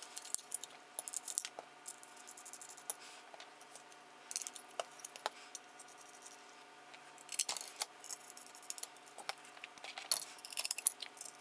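Small hard clicks and light rattling of metal standoffs and screws being handled and fitted into a carbon-fibre drone frame plate. They come in scattered clusters.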